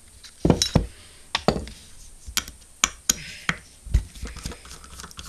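Irregular knocks and clicks of a hard-disk drive's metal base being handled and turned over on the table, with a screwdriver bit clicking against the screws around the spindle motor. The heaviest thumps come about half a second in and about four seconds in.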